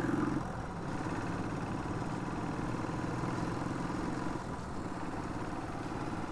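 Motorcycle engine running steadily at low revs, with an even, regular firing pulse.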